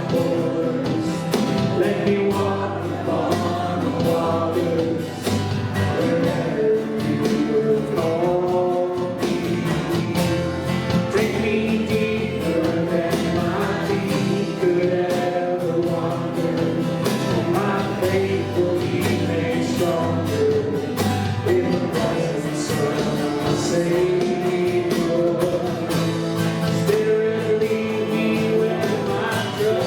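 Live church worship music: voices singing a gospel-style song over instrumental accompaniment, with held notes and a steady beat.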